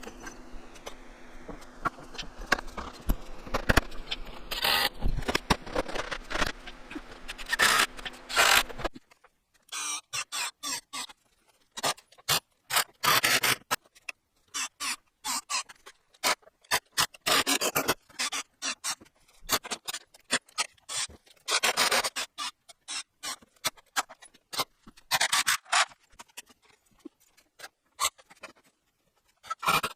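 Irregular short scraping and rubbing strokes. A steady low hum underneath stops about nine seconds in, leaving the strokes alone with gaps of silence between them.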